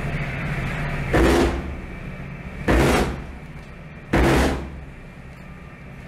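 Warning fire from a ship's deck gun: three short bursts about a second and a half apart, each cutting off quickly.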